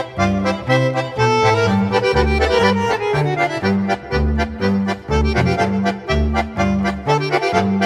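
Instrumental background music with a steady beat and a bouncing bass line.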